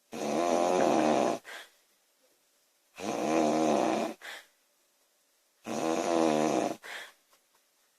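A woman snoring loudly: three long, rasping snores about three seconds apart, each followed by a short, fainter breath.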